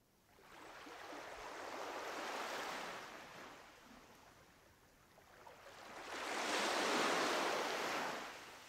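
Surf-like rushing noise that swells up and dies back twice, the second swell louder, after fading in from silence.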